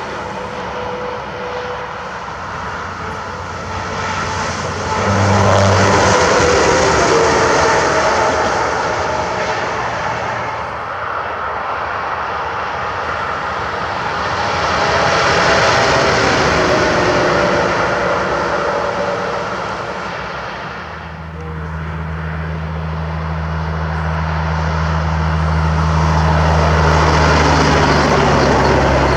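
Semi trucks going by on a highway one after another, the tyre and engine noise swelling and fading three times. About two-thirds of the way in, a steady, deep engine hum sets in under the passing traffic.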